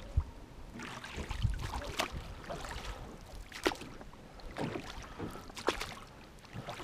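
Small inflatable boat being paddled through marsh water: oar strokes splashing, with irregular knocks against the boat over a low wash of water.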